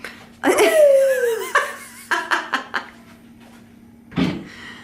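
A person's voice rising in a delighted exclamation whose pitch falls over about a second, followed by short bursts of laughter.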